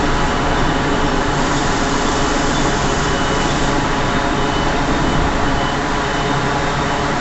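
Loud, steady industrial din of steel plant machinery around an electric arc furnace, with a low electrical hum underneath.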